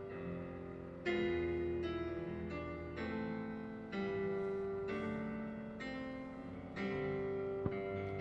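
Slow, gentle piano music: notes and chords struck roughly once a second, each left to ring and fade.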